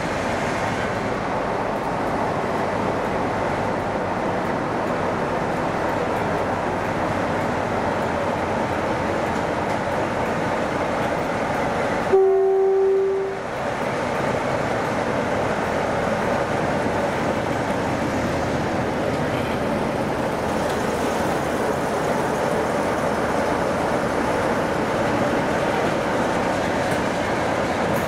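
Steady rumble and rush of a train running on the rails, broken about twelve seconds in by a short single-note train horn blast lasting about a second, the loudest sound here.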